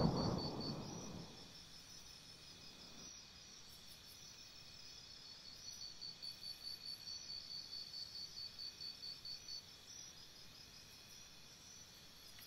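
Faint high-pitched chirping like crickets, repeating steadily in quick even pulses. A whoosh dies away in the first second or so.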